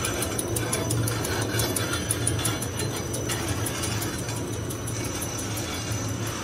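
LZ5/560 straight-line wire drawing machine running on high carbon steel wire: a steady mechanical drone with a constant low hum and rapid ticking, which thins out after a few seconds.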